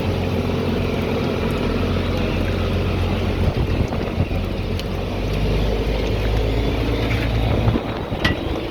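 Fishing boat's engine running steadily, a deep, even hum that shifts slightly in pitch near the end.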